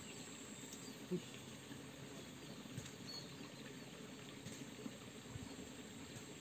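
Quiet outdoor background: a faint steady hiss with a few light ticks and one brief low sound about a second in.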